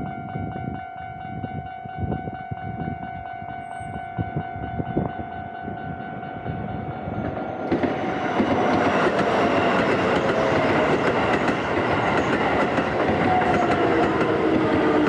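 Japanese railway level-crossing alarm ringing with a steady high tone, then about eight seconds in a Keisei Line train arrives and runs through the crossing, its wheels and running gear loud over the bell, with a falling whine near the end.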